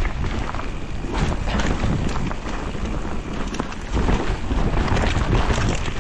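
Wind rushing over the camera microphone on a mountain bike descent, with the steady rumble of tyres on the trail and frequent short knocks and rattles from the bike over rough ground.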